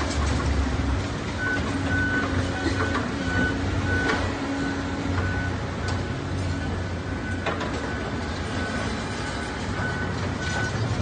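Heavy construction machinery running steadily with a diesel engine hum, while a reversing alarm beeps about twice a second through most of it. A few sharp knocks of demolition debris or steel are heard.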